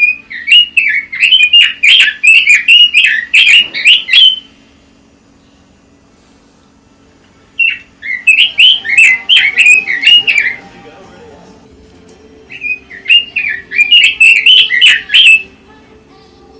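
Pekin robin (red-billed leiothrix) singing: three loud, rapid phrases of quick warbled notes, each about three to four seconds long, with pauses of a few seconds between them. A faint steady hum runs underneath.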